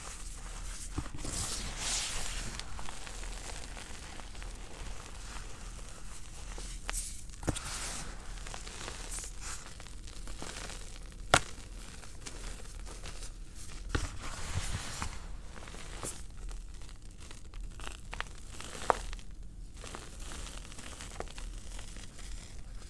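Crumbled cornstarch and gym chalk being squeezed and crushed by bare feet and hands: a steady crackly, crunchy crumbling, with a few sharp cracks as firmer chunks break.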